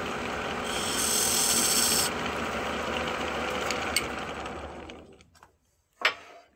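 A flat file held against a small wooden tenon spinning on a wood lathe, a rasping hiss that stops about two seconds in. The lathe runs on, then winds down to silence about five seconds in, and a single sharp knock follows near the end.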